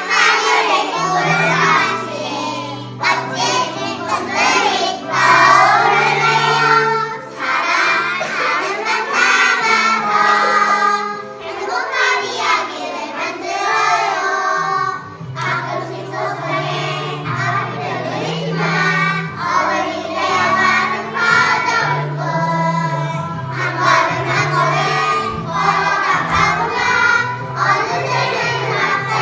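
A group of young children singing a song together in unison, with steady instrumental accompaniment underneath.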